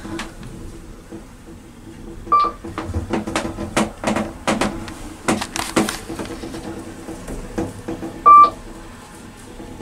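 Small Kone-modernised traction elevator car in motion: a steady hum with a cluster of creaks and clicks in the middle. Two short electronic beeps sound from the car, one a couple of seconds in and one near the end.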